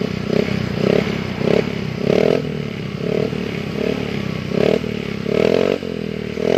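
Yamaha Mio Gear 125 scooter's single-cylinder engine, breathing through an unbaffled SKR aftermarket racing muffler, blipped over and over: about ten short revs, one or two a second, a few held a little longer. The tone is deep and mellow for an open pipe.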